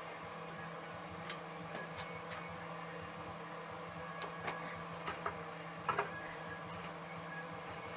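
Scattered light clicks and knocks of metal parts and tools being handled while fitting a snowblower's auger assembly, with two sharper knocks about six seconds in, over a steady background hum.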